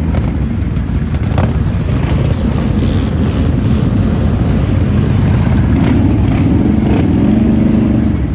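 Several ATV and side-by-side engines running close by, a dense continuous rumble. A steadier engine tone comes up in the last couple of seconds.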